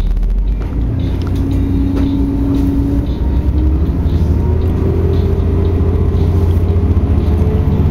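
A motor vehicle's engine running under load with a deep rumble. Its note rises slowly through the second half.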